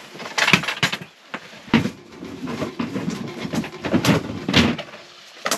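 A person moving about and handling things in a small tent: clothing rustling with irregular knocks and bumps, the loudest about half a second in and again around four seconds in.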